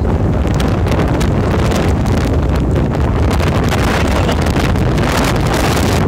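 Strong wind buffeting the microphone, a loud, continuous rumble.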